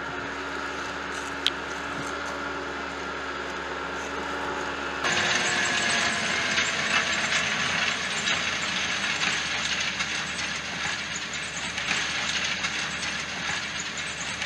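New Holland T7 LNG tractor running as it pulls a seed drill across a field: a steady engine hum with a single sharp click about a second and a half in, then an abrupt switch about five seconds in to a louder, hissier run.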